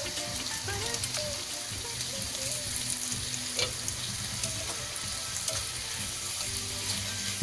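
Vegetables sizzling as they stir-fry in a nonstick frying pan, stirred with a spatula, with a few light clicks of the spatula against the pan.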